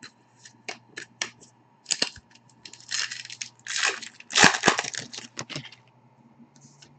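Hockey trading cards being handled and shuffled by hand: sharp clicks of cards, then several scratchy, rustling bursts of cards sliding over one another from about two to five and a half seconds in.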